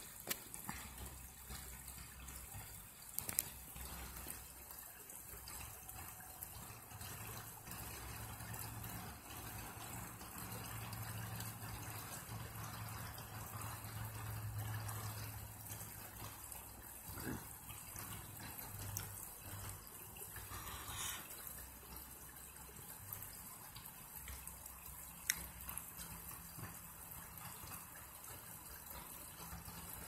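Shallow creek babbling and trickling steadily over rocks, with a couple of sharp clicks about 3 seconds in and again near 25 seconds.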